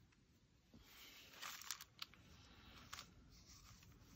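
Near silence, with a few faint short scrapes and ticks about one and a half, two and three seconds in, from art supplies being handled on a work table.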